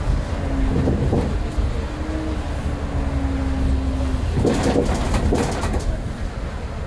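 Transbus Trident double-decker bus driving, heard from inside: a low engine and drivetrain rumble with a thin whine that shifts slightly in pitch and stops about four seconds in, followed by a brief burst of rattling noise. The bus has a ZF automatic gearbox, which is described as slipping.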